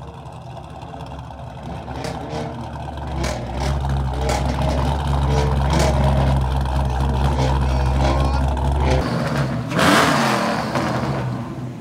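Car engines running, a deep steady rumble that cuts off about nine seconds in, followed by a loud rush of engine noise about ten seconds in as a car revs or drives past.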